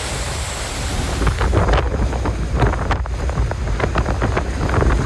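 Hurricane wind buffeting the microphone, a heavy low rumble, with many short crackles and rattles from about a second in.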